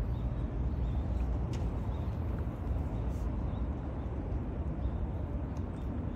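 Steady low outdoor background rumble with no clear single source, and a few faint clicks.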